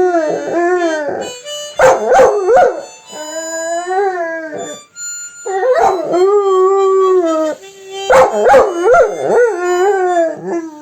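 Labrador howling in long, wavering notes that rise and fall, about five in a row with short breaks between them, over background music.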